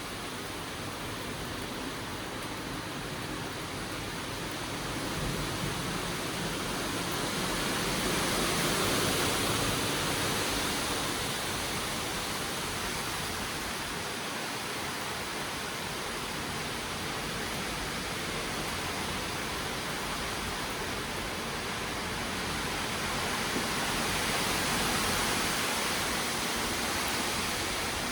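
Strong wind of a severe thunderstorm: a steady rushing noise that swells twice, about a third of the way in and again near the end.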